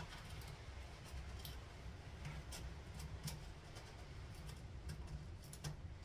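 Faint scattered clicks and light knocks of a gloved hand handling parts on top of a car engine, over a low steady background hum.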